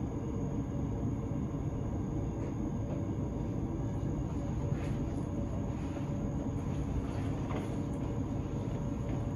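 Steady low rumble and hum inside an S-Bahn commuter train standing still, with a few faint clicks about halfway through.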